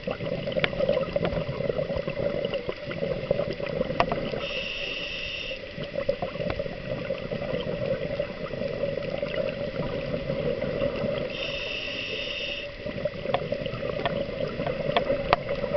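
Scuba diver's regulator breathing underwater: a one-second hiss of inhalation about four and a half seconds in and again about eleven and a half seconds in, with bubbling exhalation between and scattered sharp clicks.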